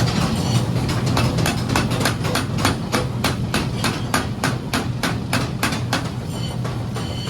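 Hammer blows on iron during forging: a fast, even run of strikes, about five a second, over a steady low hum.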